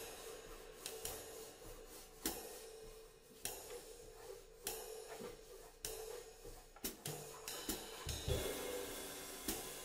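Swing drumming on a drum kit, with cymbals and hi-hat washing steadily and accented strikes about once a second.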